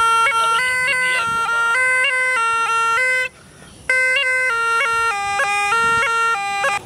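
Snake charmer's been (pungi) playing a reedy, nasal melody that steps between a few close notes. It breaks off for about half a second around the middle, then carries on.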